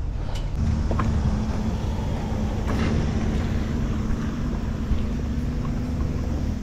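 A vehicle engine running steadily at an even pitch, starting about half a second in and cutting off suddenly at the end, with a few light clicks just before it starts.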